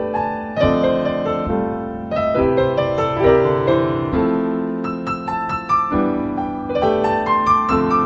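Background music: a piano playing a gentle melody over changing chords.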